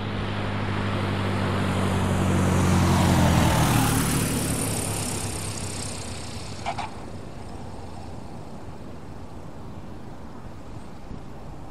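Cessna 120 light plane passing close by: its propeller engine grows louder to a peak about three and a half seconds in, drops in pitch as it goes past, then fades away. A short high chirp about seven seconds in.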